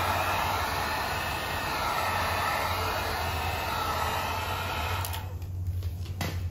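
A handheld electric blower running steadily, a rush of air over a low motor hum, blowing onto the wet headlight; it cuts off about five seconds in, and a couple of short sharp clicks follow near the end.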